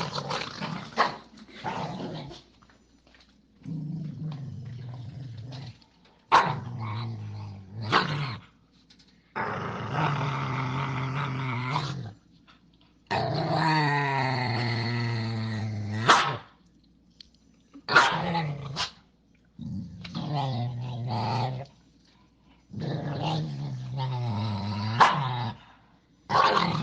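Dog growling in repeated low bouts of one to three seconds with short pauses between them, several bouts ending in a sharp bark.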